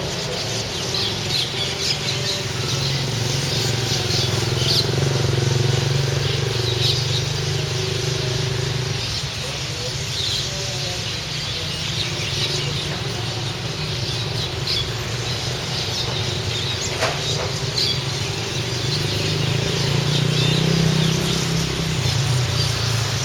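A large flock of small birds chirping constantly on a wire, with steady traffic rumble underneath that swells twice as vehicles pass.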